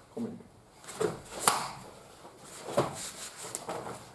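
Karate uniform (gi) snapping sharply as punches are thrown: four cracks spread across a few seconds, the loudest about a second and a half in.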